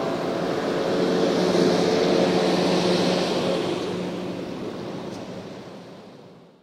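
Diesel engines of a JCB wheel loader and a farm tractor running as they work a maize silage clamp, a steady machine drone with a low hum. It fades out toward the end.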